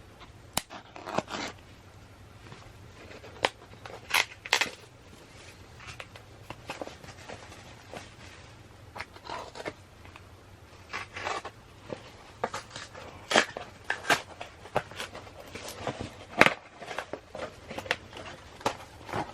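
Hands opening and handling packaging of photo cards: irregular crinkling, rustling and tearing of plastic and paper, with sharp clicks and taps, over a faint low hum.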